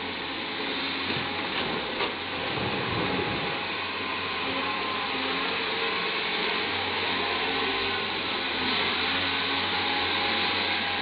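Caterpillar 320D hydraulic excavator working: a steady diesel engine and hydraulic drone as it digs, swings and dumps coal, with a few light knocks about a second and two seconds in.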